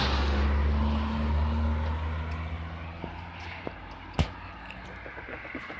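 A car passing close by, its engine and tyre noise peaking as it goes past and then fading away over the next two seconds or so. A single sharp click about four seconds in.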